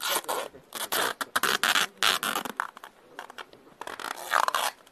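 Adhesive tape being pulled off the roll in a series of quick ripping pulls and wound around a person's wrists to bind them, with a pause of about a second and a half before a last pull near the end.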